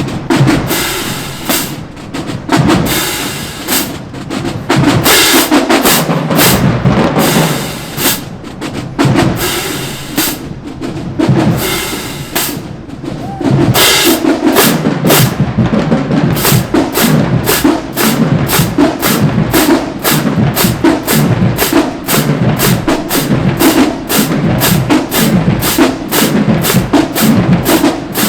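Marching band drumline playing a loud percussion cadence on snare and bass drums, settling into a fast, steady beat about halfway through.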